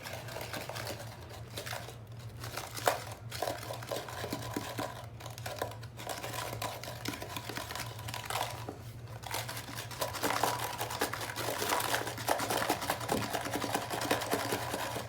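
Crinkling and rustling of baking soda packaging, with scattered clicks, as baking soda is poured out. It is briefly quieter twice, about a third and about halfway through.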